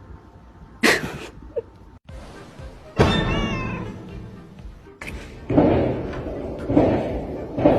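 A domestic cat meowing, with background music.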